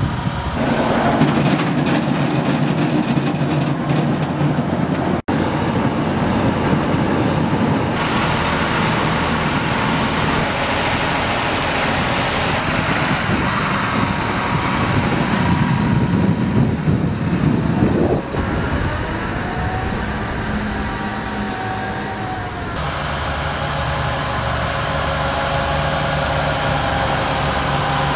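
Fendt tractor's diesel engine running steadily while it pulls a Grimme potato planter. The sound shifts abruptly several times, including a brief dropout about five seconds in.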